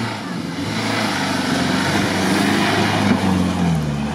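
Off-road SUV's engine revving under load on a rutted course, its pitch rising and falling, with a wash of engine and driving noise that swells through the middle.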